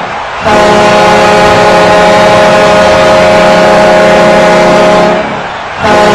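NHL arena goal horn sounding in long blasts: a loud, steady, low multi-toned horn held for nearly five seconds, cutting out briefly near the start and again near the end before sounding once more.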